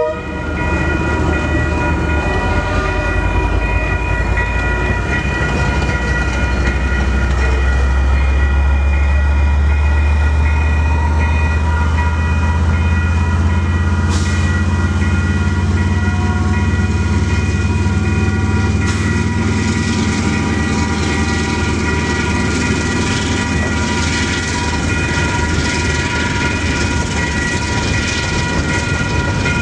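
Level crossing alarm bells ringing steadily while a KiwiRail DL-class diesel-electric locomotive's engine passes, louder through the middle. Tank-container wagons follow, rolling over the crossing.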